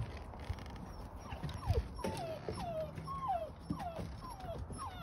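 Puppy whimpering: a run of short, high whines, each falling in pitch, about two or three a second, starting about a second in, with a single soft thump among them.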